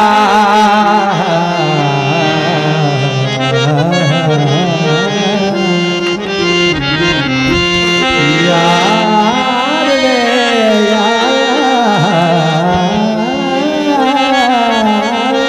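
Amplified live Punjabi folk music: a man sings a long, wavering, ornamented melody into a microphone over instrumental accompaniment with steady held tones.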